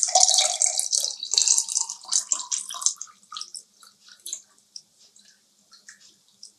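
Carrot milkshake pouring from a steel vessel through a metal tea strainer into a glass: a splashing stream for about three seconds, then thinning to a trickle and scattered drips.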